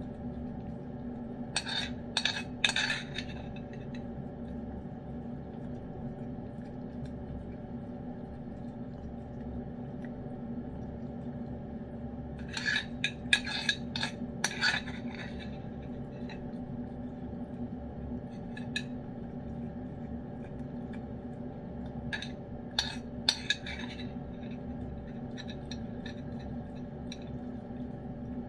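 A metal spoon clinking and scraping against a ceramic bowl while wet cat food is scooped, in three short bursts of several clicks each, over a steady low hum.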